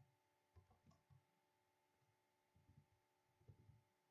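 Faint keystrokes on a computer keyboard in a few short runs, over a low steady hum.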